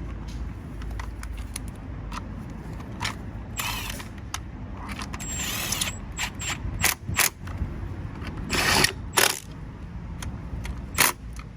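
Screws being driven back into the air filter box cover of a Honda PCX125 scooter with a hand tool. It makes runs of ratchet-like clicking and scattered sharp clinks as the cover is fastened back on.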